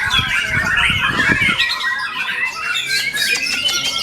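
White-rumped shama (murai batu) singing a rapid, varied song of whistles and chattering phrases without pause, with a few low thuds in the first second or so.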